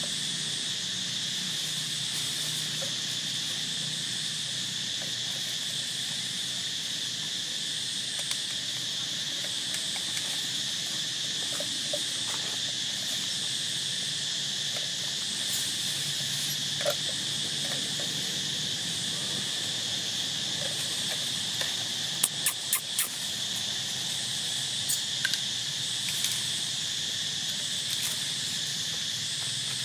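Steady, high-pitched chorus of insects droning without a break, with a faint pulsing shimmer above it. About two-thirds of the way through there is a quick cluster of sharp clicks.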